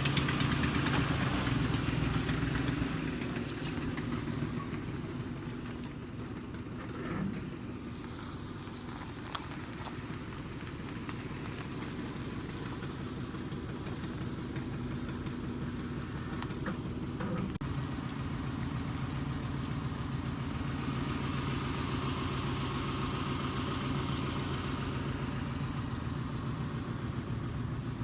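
A vehicle engine running steadily with a low hum. It is louder for the first few seconds, fades through the middle and grows louder again in the last third.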